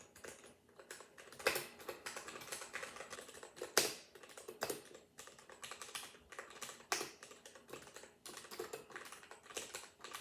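Keystrokes on a Ducky mechanical keyboard with Cherry MX Red linear switches: a run of quick, irregular key clicks with a few heavier strikes.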